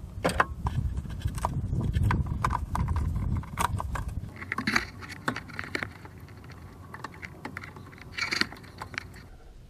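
Socket wrench and metal parts clicking and rattling as bolts are worked loose, with handling noise and a short scrape about eight seconds in.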